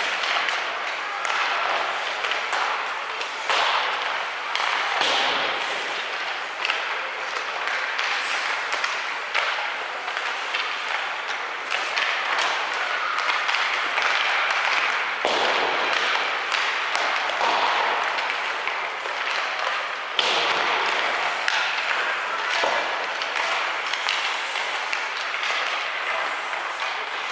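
Ice hockey game sound in a rink: scattered sharp knocks of sticks and puck over a steady noise of skates and spectators' voices.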